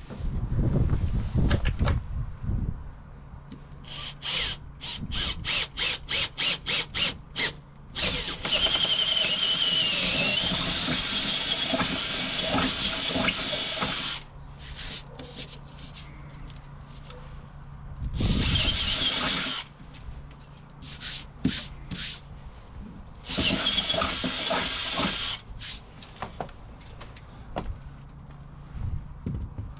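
Cordless drill drilling into a van's plywood floor. It starts with a string of short trigger pulses, then runs three times with a steady high whine: once for about five seconds, then twice more briefly.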